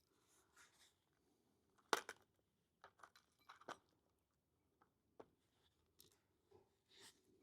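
Near silence broken by a few short faint clicks and taps, the sharpest a pair about two seconds in, then scattered lighter ticks.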